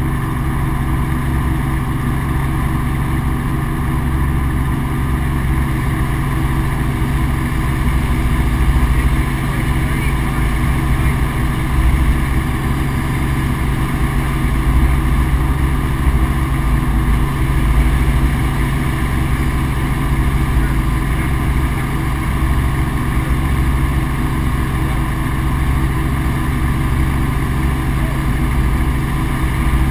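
Helicopter in flight: a steady, loud drone of engine and rotor that holds level throughout, with a fluttering low rumble.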